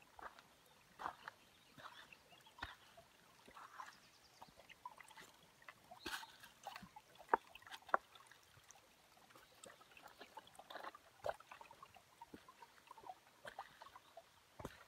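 Footsteps on a rocky dirt trail: irregular short crunches and scuffs of loose stones and gravel underfoot.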